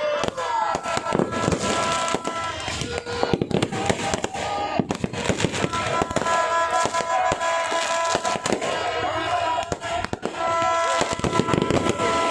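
Fireworks going off in rapid succession, with bangs and crackles overlapping constantly. Steady held tones of music sound alongside for stretches.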